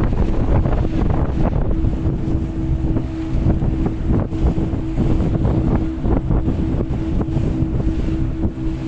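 Motorboat engine running steadily at an even pitch, with wind buffeting the microphone.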